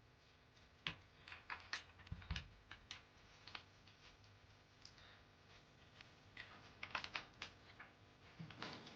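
Mechanical keyboard with clicky Outemu Blue switches being typed on: two runs of sharp key clicks with a pause of about three seconds between them.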